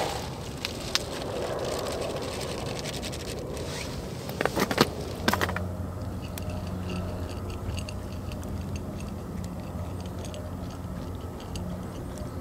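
Dry dog food rattling as it is poured from a bag into a collapsible silicone bowl, then a dog crunching the kibble. Near the middle comes a short cluster of sharp clinks, the loudest sound. From about halfway a steady low engine hum runs underneath.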